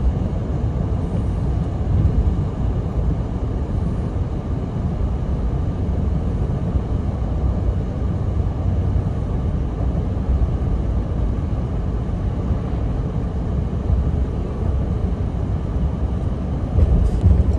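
Steady low rumble of road and wind noise from a vehicle driving along.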